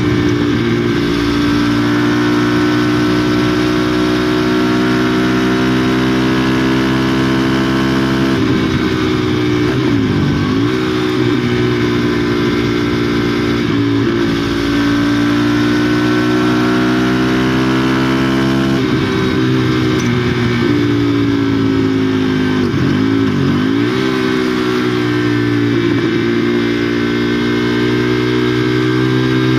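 KTM Duke 390's single-cylinder engine running through a de-catted (NOCAT) exhaust, heard from a camera mounted on the bike, pulling under throttle with its note slowly rising. Several times the pitch dips and climbs back, about a third of the way in and again around three-quarters through.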